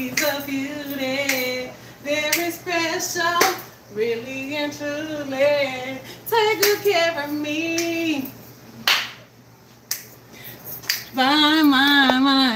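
A woman singing unaccompanied in long, wavering held notes, phrase after phrase, with a few sharp clicks between phrases around the middle.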